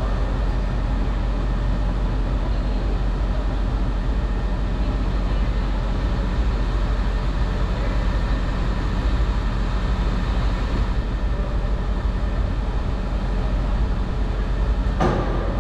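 Steady low rumble of a running vehicle, with a single knock near the end.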